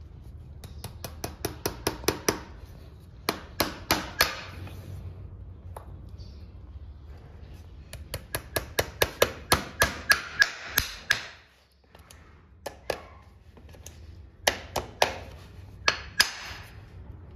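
Farrier's hammer striking metal in quick runs of about four or five blows a second, in four bursts with short pauses between them. Some of the blows ring briefly.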